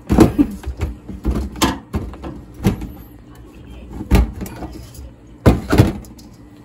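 A string of irregular knocks and clunks, like objects being handled and set down, with a close pair near the end.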